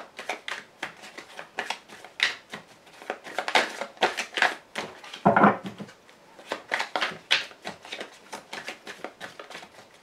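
A tarot deck being shuffled by hand, the cards flicking and slapping against each other in quick, irregular strokes. A short vocal sound comes about halfway through.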